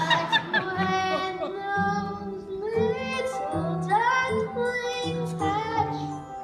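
A child singing a show tune solo over musical accompaniment, with held notes that slide between pitches.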